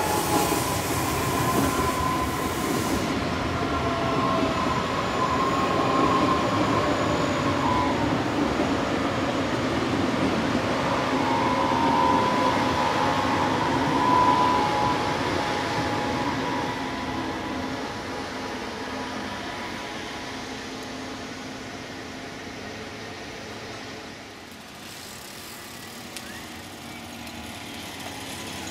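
Red S-Bahn electric multiple unit running through the level crossing: wheels on the rails with a steady motor whine, loudest in the first half, then fading away as the train leaves.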